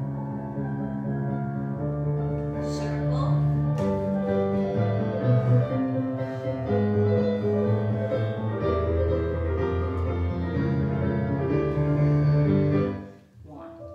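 Solo piano accompaniment for a ballet barre tendu exercise, playing a flowing melody over sustained chords; the piece ends about a second before the close and a new phrase starts faintly.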